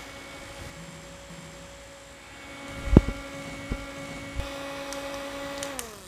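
Small battery mini desk fan running with a steady motor hum, a knock about three seconds in and two lighter clicks from handling it. Near the end the hum falls in pitch as the fan is switched off and spins down.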